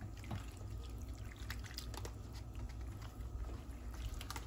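A fork stirring penne through a thick cream sauce in a pan, making soft, wet, irregular clicks.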